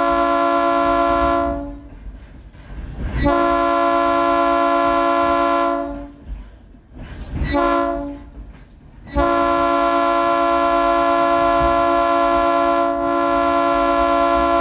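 Train's multi-note air horn blowing the grade-crossing signal: two long blasts, a short one, then a final long blast held about six seconds. This is the standard warning for a road crossing ahead.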